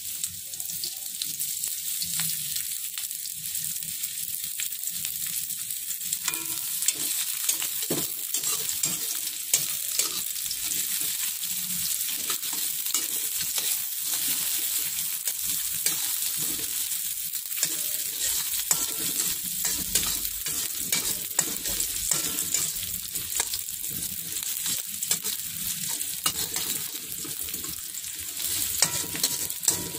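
Sliced shallots sizzling in hot oil in a wok, being sautéed until fragrant, with a steady frying hiss. A perforated metal spatula stirs them, scraping and clicking against the pan many times.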